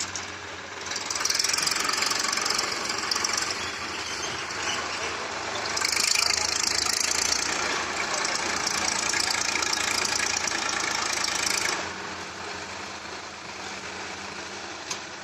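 Heavy diesel engine of an excavator running. Twice it swells into a loud rushing noise: a short stretch about a second in, then a longer one from about six seconds in. After nearly twelve seconds it settles back to a quieter steady run.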